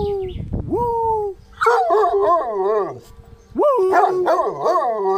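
A dog howling: two short cries that fall in pitch, then two long howls whose pitch wavers up and down.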